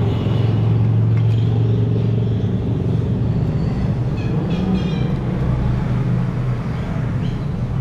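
Steady low rumble of an idling engine, with street background noise.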